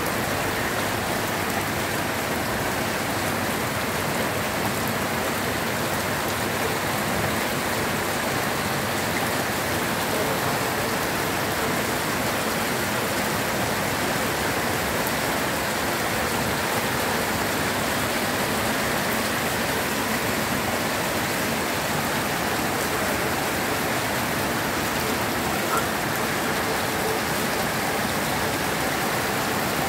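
Rain falling steadily on wet pavement, an even, unbroken hiss.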